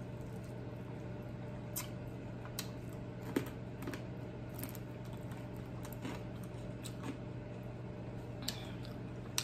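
Close-up eating sounds from picking at a fried chicken wing and licking fingers: soft lip smacks and small clicks, one every second or so, over a steady low hum.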